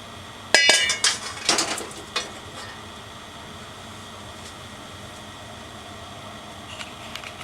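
Kitchenware clinking and clattering: a quick run of sharp, ringing knocks of metal or crockery about half a second in, lasting about a second and a half, over a steady low hiss.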